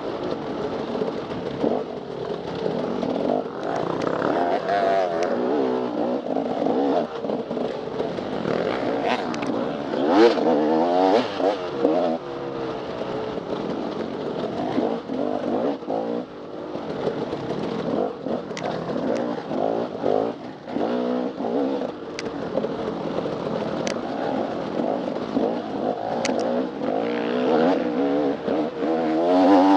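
Dirt bike engine running under constant throttle changes: the pitch climbs and drops again and again as it revs up and backs off.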